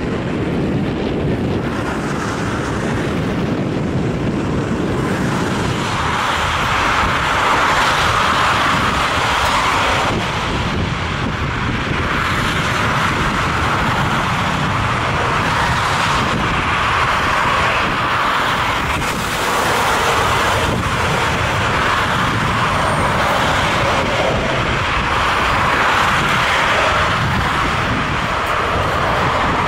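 Boeing 737 jet engines running on the runway: a steady, loud rushing roar with a low rumble beneath, swelling and easing several times.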